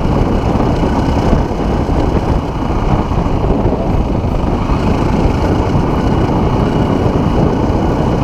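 Trail motorcycle engine running steadily while the bike rides along a grassy track, with heavy wind rumble on the microphone.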